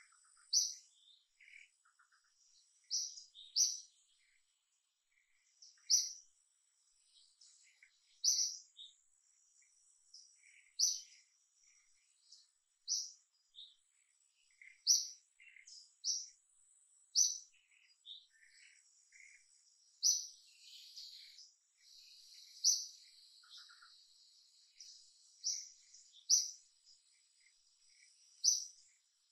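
Birds calling: a short, sharp high note repeated every one to two seconds, with softer chirps between them. A high hiss swells for a few seconds about two-thirds of the way in.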